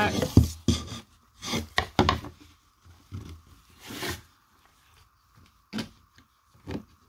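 Handling noise of crafting: tulle netting rustling and a chenille pipe cleaner rubbing and scraping as it is worked through holes in a plywood board, in irregular short bursts.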